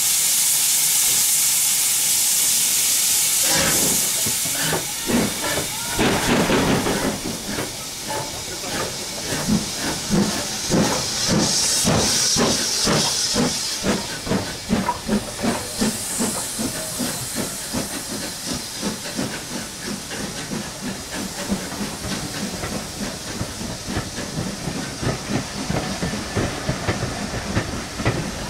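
Steam locomotives, an LNWR 'Super D' 0-8-0 and BR Standard tank 80002, starting a train away. A loud steady steam hiss gives way about four seconds in to exhaust beats, slow at first and then quickening and evening out as the engines gather speed.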